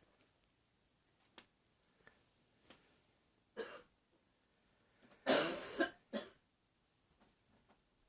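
A woman with a viral illness coughing. There is one short cough about three and a half seconds in, then a longer, louder bout of coughs just after five seconds.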